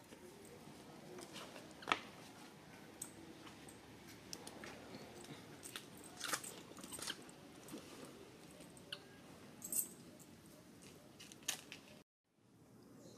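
Outdoor background noise with a steady low rumble and scattered sharp clicks and crackles. The sound cuts off abruptly near the end.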